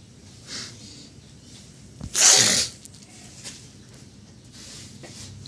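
A single loud, sharp sneeze about two seconds in, preceded by a softer breath about half a second in, over a faint steady low background.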